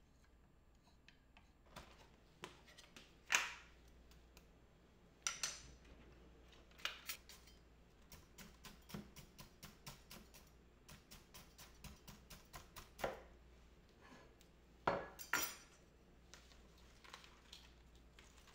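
A spoon knocking, clinking and scraping against containers while stirring cut fruit in juice. There are scattered knocks, the loudest about three seconds in and twice in quick succession near the end, and a quick run of light taps, about three a second, in the middle.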